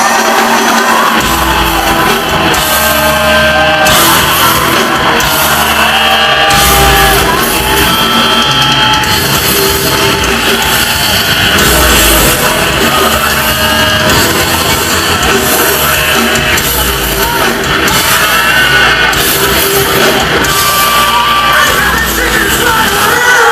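Rock band playing live at full volume, a singer yelling over guitars and pounding drums, heard from the audience in a large hall.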